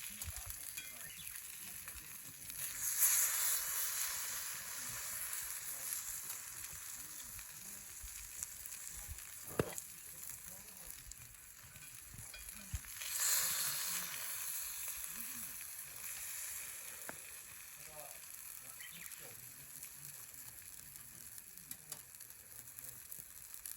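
Food sizzling in a pan. The sizzle swells louder twice, and there is a single sharp tap about ten seconds in.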